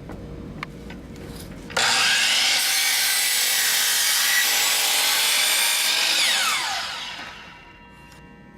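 Power miter saw switched on with a sudden start about two seconds in, running loud and steady for about four seconds as it cuts through wooden lid trim, then the motor winds down with a falling whine.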